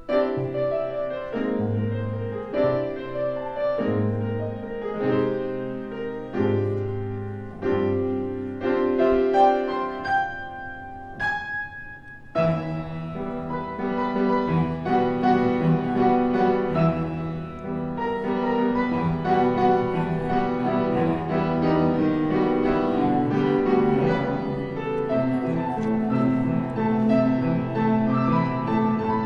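Background music led by piano. About twelve seconds in it dips briefly, then continues fuller and more sustained.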